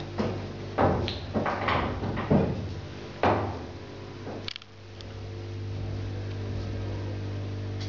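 Several knocks and clatters of metal lamp parts being handled as the socket is worked loose from the lamp's metal arm, bunched in the first half. A steady low hum follows.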